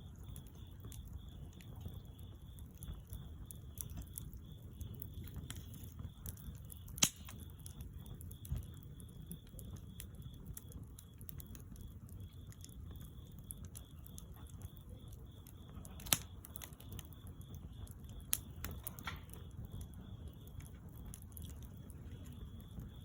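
Bonfire burning: a low steady crackle with scattered sharp pops, the loudest about seven and sixteen seconds in.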